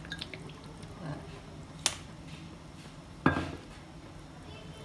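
Kitchen handling sounds over a faint steady low hum: a few small clicks, a sharp click about two seconds in, and a louder knock with a short ring a little after three seconds. They come as the fish sauce bottle is taken away from the pot and set down.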